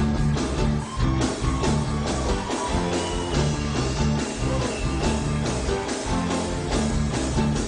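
Band music with a steady beat: drums, bass and guitar playing an upbeat soul/rock-and-roll groove.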